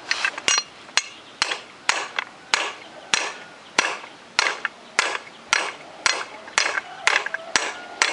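Steady hammer blows on metal, about two a second, driving a part into the fan bearing seat of a walk-behind tractor. Each strike has a short metallic ring.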